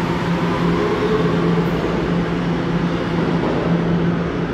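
New York City subway train pulling out of an underground station and running off along the track, with steady rumbling noise and a low steady hum.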